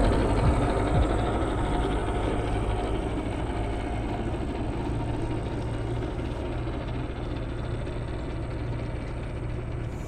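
New Holland L85 tractor's diesel engine running steadily under load while driving a Westbjørn snowblower, with the dense rush of snow being thrown. The sound fades slowly as the tractor moves away.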